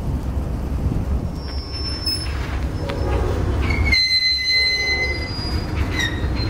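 Freight train rolling past: a steady low rumble of its wheels on the rails, with a brief high wheel squeal about two seconds in. After an abrupt cut, a high, steady train wheel squeal sounds for about a second and a half, then another short squeal near the end.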